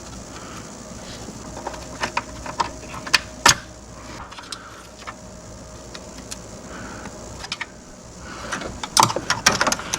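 Scattered light clicks, taps and rattles of hand tools and latch parts being worked loose, with a quick run of clicks near the end.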